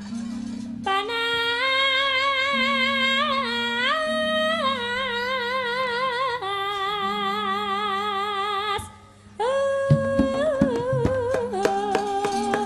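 A sinden, a female Javanese gamelan singer, sings long held notes with a wide vibrato over low steady instrumental notes. She breaks off briefly about nine seconds in, then resumes as sharp hand-drum strokes come in.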